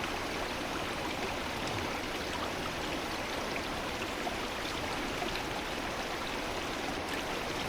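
Steady running water, like a stream flowing, with faint trickles and drips.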